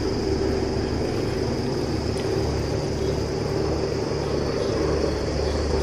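Steady mechanical hum holding one constant tone over a low rumble, with a faint steady high whine above it.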